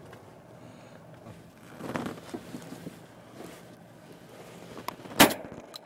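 Steady wind and sea noise on an open boat, then a single sharp shotgun shot about five seconds in, the loudest sound.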